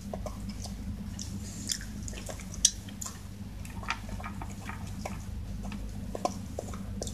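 Shiba Inu eating dry kibble from a bowl: irregular crunches and clicks of chewing, the loudest about two and a half seconds in.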